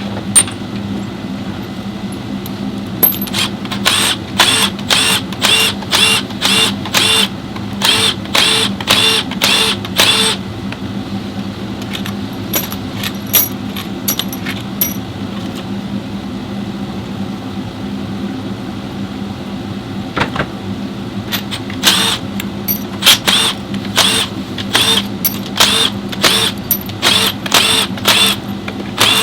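Hand tools working on metal under the car: sharp metallic clicks, about two a second, in two runs, one early and one in the last third, over a steady low hum.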